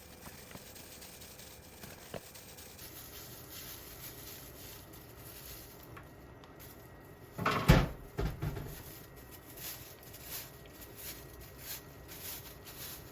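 Quiet kitchen handling sounds: faint light taps, then one louder clatter about seven and a half seconds in, followed by a couple of lighter knocks.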